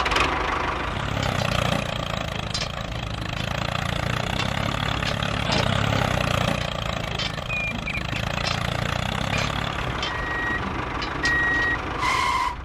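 Tractor engine running steadily as the mini tractor drives, with a few short high beeps near the end.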